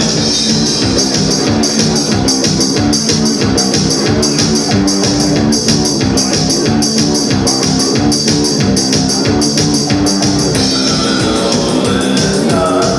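Loud live post-punk band music: electric guitar over a steady, fast beat. The high cymbal-like ticks drop out about ten and a half seconds in.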